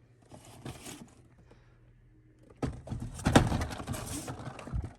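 Someone rummaging through a box of packaged die-cast cars: light rustling and clatter, a quiet second or so, then busier handling noise with one sharp knock about three seconds in.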